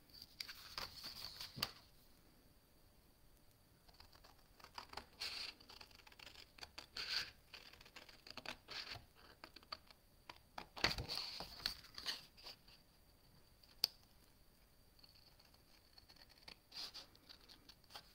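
Scissors cutting into scored card stock: faint snips and crackles of the card, with the sheet rustling as it is handled. They come in short bouts with pauses between.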